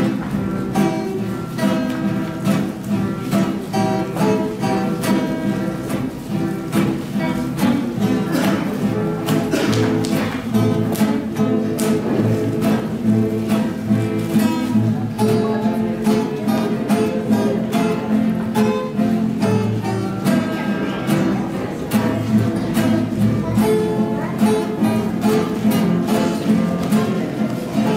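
Trio of acoustic guitars, one nylon-string classical and two steel-string, strumming and picking a tune together in a steady rhythm.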